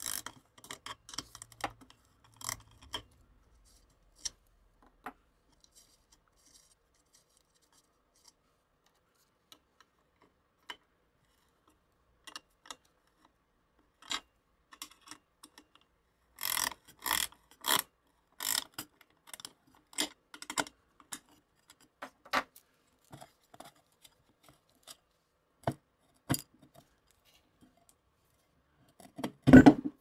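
Ratcheting wrench clicking while it loosens nuts on a metal coffee-maker base: scattered clicks, a denser run of quick clicks about halfway through, and a louder knock near the end.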